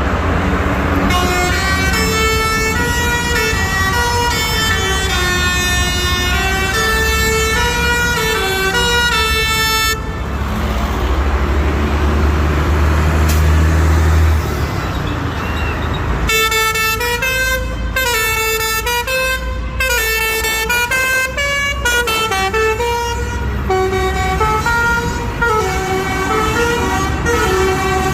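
Telolet basuri bus horn playing a tune in quick stepped notes, over a low engine rumble. About ten seconds in the tune stops for some six seconds, leaving the rumble and a rushing noise, then a second tune plays to the end.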